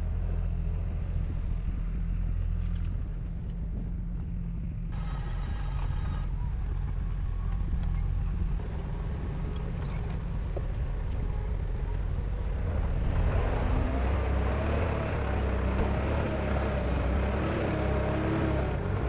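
Heavy machinery engine running steadily throughout, growing louder and rougher from about 13 seconds in, as if working under more load.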